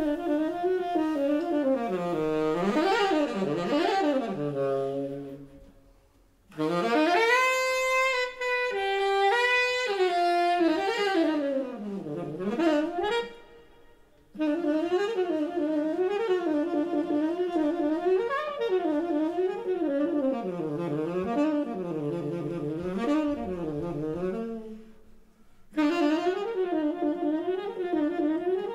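Tenor saxophone playing an unaccompanied jazz solo: fast runs and repeated rising-and-falling figures, broken by three short pauses between phrases.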